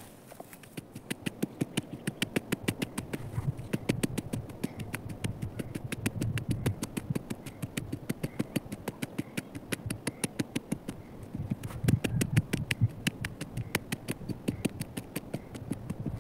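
Small wooden-handled hammer striking rapidly at the ground, about five blows a second: each blow a sharp click over a dull thud, heaviest around four seconds in and again about twelve seconds in.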